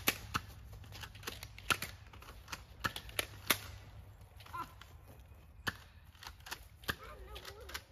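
Toy blasters firing: a string of sharp, irregularly spaced snaps, about a dozen, coming more often in the first half.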